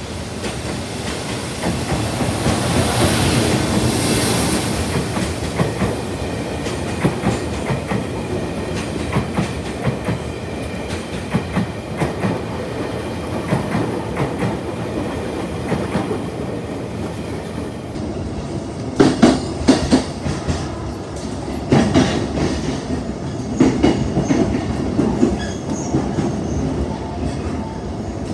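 Electric locomotive hauling a rake of unpowered Tokyu 5080 series cars through a station, with a steady rumble and wheels clacking over the rail joints. After a cut about two-thirds of the way in, the wheel clacks come louder and sharper.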